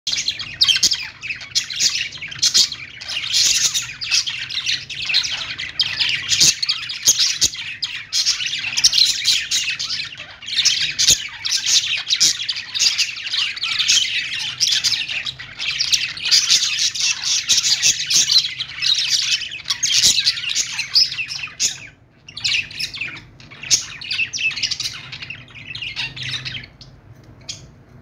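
A flock of caged budgerigars chattering and warbling without pause: dense, rapid high chirps and squawks over a faint low hum. The chatter breaks off briefly about 22 seconds in, then comes back thinner and stops just before the end.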